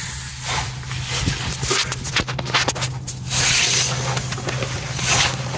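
Rustling handling noise with scattered clicks and crunches as the camera is moved about under the van, over a steady low hum. The loudest rustling comes about three seconds in and again near the end.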